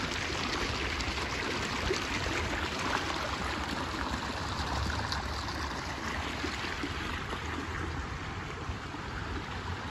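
Pumped irrigation water gushing out of the outlet into a concrete channel and rushing along it, a steady splashing flow.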